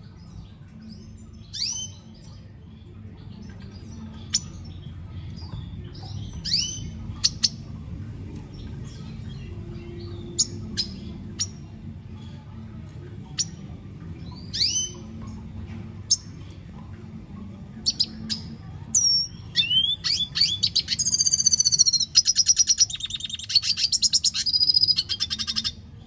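Male red siskin singing: scattered short calls that sweep down in pitch, then near the end a fast, dense run of song with rapid trills, the loudest part. A steady low hum lies underneath.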